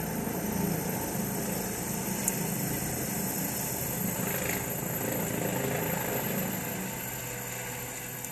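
Medical helicopter just after lift-off, its rotor and engine noise steady and continuous, easing slightly near the end as it moves away.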